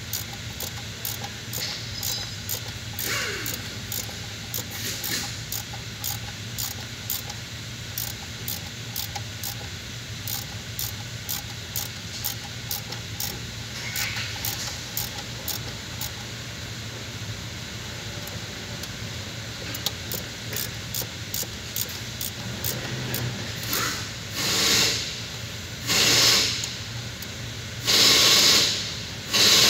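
Hand ratchet wrench clicking in an even rhythm, two or three clicks a second, as bolts at the thermostat housing are turned. Near the end come four short, loud bursts of hissing.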